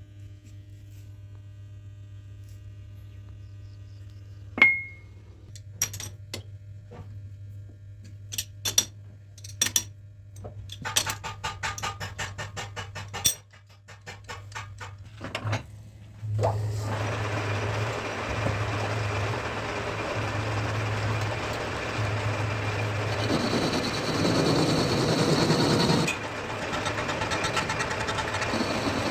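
Metal lathe workshop: a low electric hum under scattered metallic clinks and rattles of tools and parts being handled, then, about halfway through, the lathe starts and runs steadily with a low throb, growing louder for a few seconds near the end.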